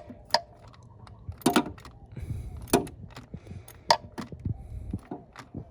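Hand tools clicking and clinking on metal while working on an ignition coil bolt: a few sharp, separate clicks roughly a second apart over a faint low hum.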